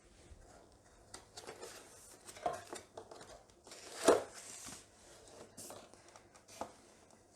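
Packaging being handled as a keyboard is lifted out of its cardboard box: scattered rustling and crinkling of wrapping, with a sharper knock about four seconds in.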